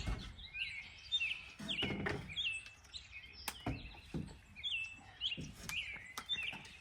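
Songbirds chirping over and over in short, quick notes, with a few sharp knocks of work on the wooden wall mixed in.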